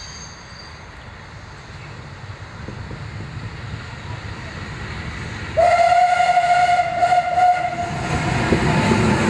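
Double-headed steam train hauled by locomotives 498.022 and 486.007 approaching, its running noise growing louder. About five and a half seconds in, a loud steam whistle sounds one steady tone for about two and a half seconds as the locomotives come close.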